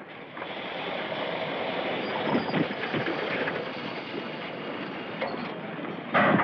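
Steam locomotive pulling out of the station: a dense, steady hiss of steam and rumble of the running gear, with a few knocks and a louder burst near the end.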